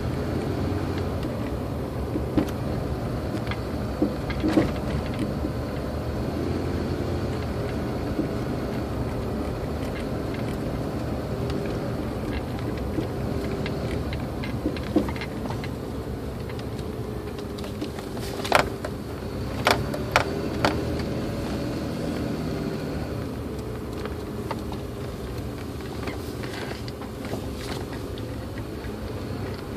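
Steady engine and road noise inside the cab of a moving 2004 Toyota Tacoma, with scattered sharp pops from the suspension and three louder ones in quick succession a little past the middle. The popping persists after the steering rack bushings were replaced and the ball joint recall was done.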